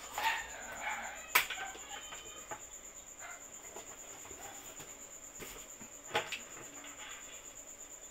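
Cardboard box and packaging being handled while a power adapter and its cable are taken out, with a sharp knock about a second and a half in and another about six seconds in. A bird calls in the background near the start.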